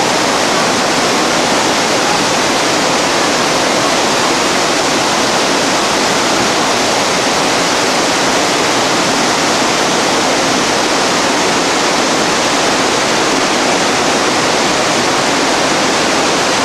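Whitewater rapids rushing steadily over rocks.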